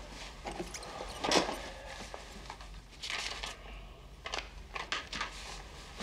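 A man's laboured, breathless breathing: a few short noisy breaths, with a longer one about three seconds in, over a faint steady room hum.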